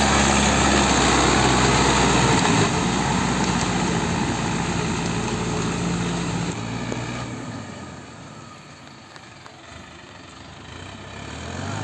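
Mahindra Arjun 555 DI tractor's four-cylinder diesel engine running steadily under load while it drives a rotavator through a flooded paddy field. It is loud at first, fades over the middle of the stretch as the tractor moves away, and grows louder again near the end.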